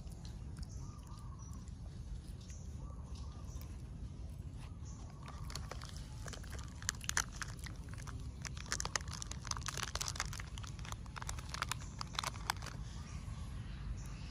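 Irregular crunching, crackling clicks, thickest from about five seconds in until near the end, over a steady low rumble.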